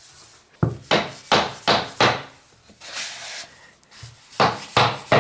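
Hand saw cutting through a laminate board with quick back-and-forth strokes, about three a second, in two runs with a short pause in the middle.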